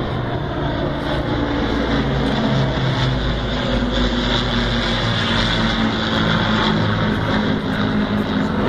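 Steady drone of a Lancaster bomber's four Rolls-Royce Merlin piston engines, mixed with the engines of two propeller fighters flying with it in formation.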